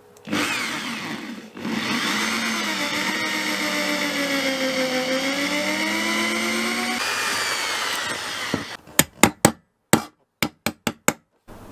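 Handheld electric drill with a small 2 mm bit running under load, drilling a ring of holes in a galley countertop to open out a tap hole. The motor's whine sags in pitch and recovers as the bit bites. Near the end comes a quick run of short sharp clicks.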